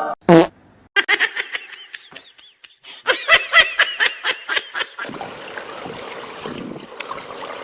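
Laughter in quick repeated high-pitched bursts, growing stronger about three seconds in, then giving way to a steady background hiss from about five seconds in.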